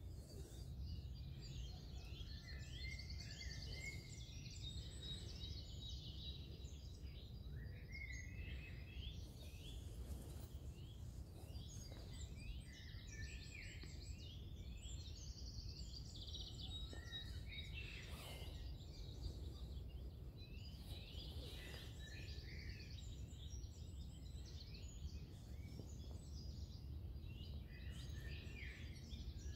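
Songbirds singing, a busy mix of short, varied high twittering phrases that go on throughout, over a steady low rumble.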